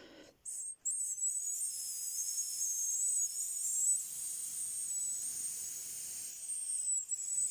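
A person whistling through the lips at a very high, thin pitch held around 8 kilohertz, wavering slightly, with breath noise. The lips are dry, so the whistle does not pitch as cleanly as usual.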